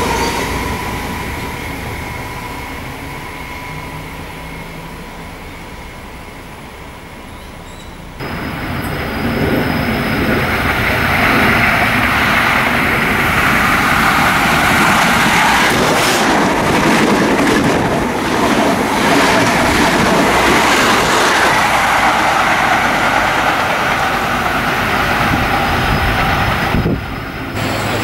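An Endeavour diesel railcar set running past and fading away. About eight seconds in, the sound jumps to an XPT diesel express train passing at speed: a loud, steady rush of engine and wheels on rail with some clicks over rail joints, lasting until shortly before the end.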